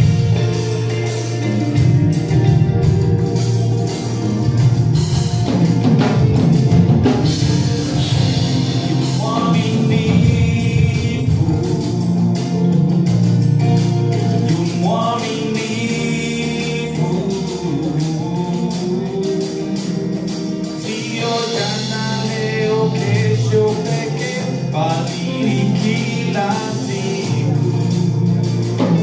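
A live gospel worship song: a singer with backing voices over a full band.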